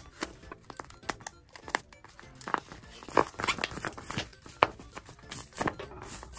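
Paper and tape crinkling and crackling in irregular bursts as a tape-covered paper squishy is pressed and squeezed by hand, the loudest crackles about three and four and a half seconds in. Soft background music underneath.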